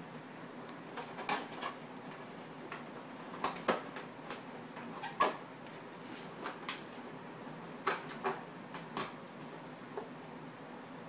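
Scattered light clicks and knocks from a metal serving tray being handled, irregular, with the loudest few around four and five seconds in, over a faint steady hiss.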